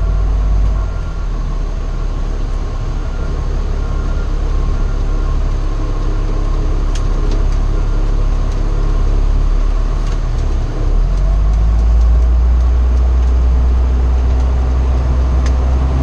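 Fire truck engine and road noise heard inside the cab as it drives, a steady low rumble that grows louder about eleven seconds in.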